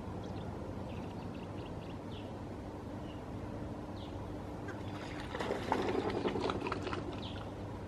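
Wetland ambience: a steady low background rumble with faint, short bird calls scattered throughout. A little past halfway, a louder noisy burst lasts about a second and a half.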